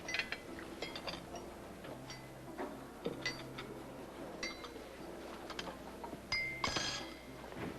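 Soft background music with steady low notes, under repeated clinking of glasses and dishes. The clinks ring briefly, and the brightest cluster comes near the end.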